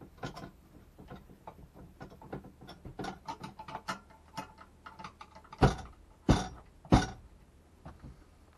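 Irregular small clicks and rattles of tools on metal fittings as the mounting of a camper van's drop-down cab bed is taken apart. A little over five seconds in come three loud knocks, about two-thirds of a second apart.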